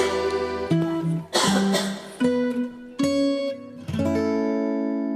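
Karaoke backing track in an instrumental break: acoustic guitar playing a few separate strummed chords, then one chord about four seconds in that is left ringing.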